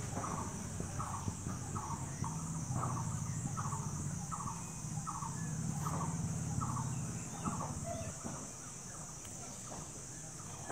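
Crickets chirring steadily, with a short squeaky call repeating about twice a second until a few seconds before the end. A low hum rises and fades in the middle.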